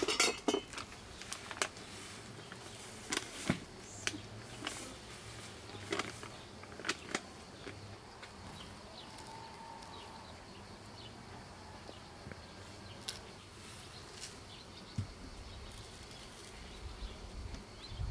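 Quiet outdoor garden ambience with a faint insect buzz and scattered short clicks and ticks, with a low thump near the end.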